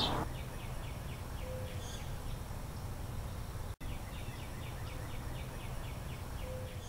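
Outdoor ambience: steady low background noise with two runs of faint, rapid high chirps at about five a second. There is a brief dropout about four seconds in.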